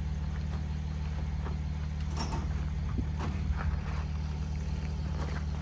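A Sprinter van's engine idling steadily, a low even hum with a regular pulse. A few faint knocks and rattles from the crates and doors at the back of the van sound over it, around two and three seconds in.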